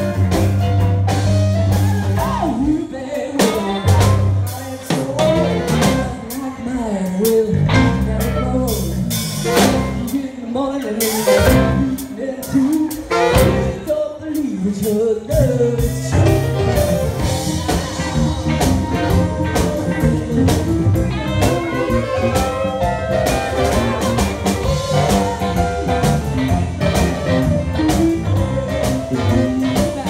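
Live blues band playing: electric keyboard, bass guitar and drum kit, with a woman singing into a microphone.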